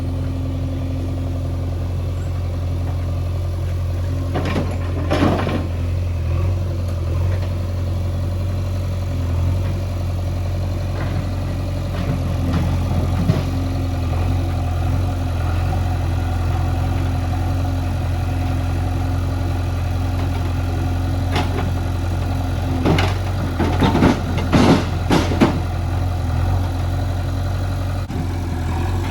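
Diesel engine of heavy earthmoving or farm machinery running steadily. Short loud clanking bursts come through about five seconds in and several more a few seconds before the end.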